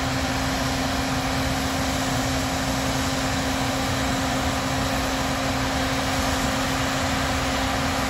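Diesel engine of a farm harvest machine running steadily while its auger unloads soybeans into a semi grain trailer: an even drone with one held hum-like tone throughout.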